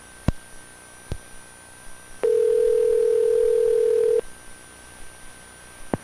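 A telephone line after a recorded message ends: two clicks, then one steady telephone tone lasting about two seconds before it cuts off, over faint line hiss.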